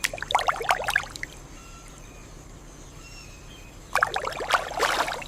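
Water splashing in two bursts, one at the start and one about four seconds in.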